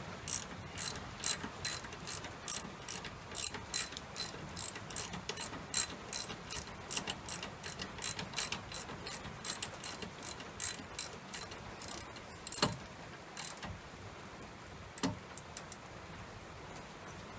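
Hand ratchet wrench clicking in quick repeated strokes, about three or four clicks a second, as the bolts on a new brake caliper are tightened. The clicking stops about twelve seconds in, followed by two louder single knocks.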